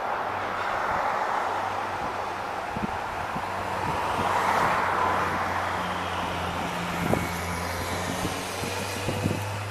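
SBB RABe 511 (Stadler KISS) double-deck electric train running in slowly with a steady electric hum. Its wheels knock over the points about two-thirds of the way in and again near the end.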